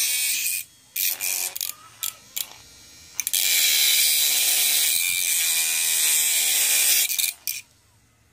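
Homemade battery-powered mini grinder, a small DC motor with a cutting disc, grinding into a steel nail with a high, harsh screech: a few short touches, then a steady cut of about four seconds, two more brief touches, and it stops near the end.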